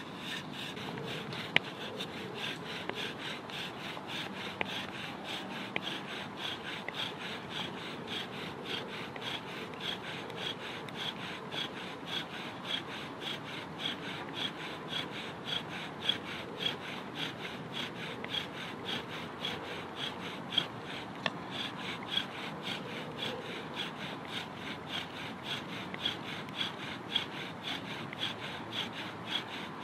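Bow drill: a wooden spindle spun back and forth in a wooden fireboard, making a steady run of rhythmic rasping friction strokes, one with each pass of the bow. The spindle's tip is already smoking in the board.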